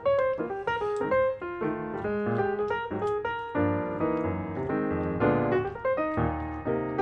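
Background piano music: a quick run of single notes over a steady bass line.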